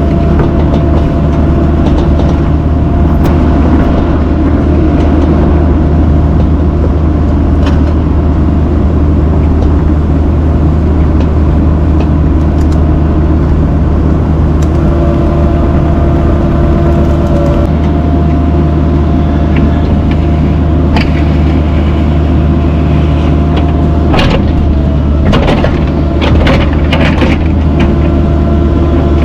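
A mini excavator's diesel engine running steadily at working speed, with a cluster of sharp knocks and scrapes near the end.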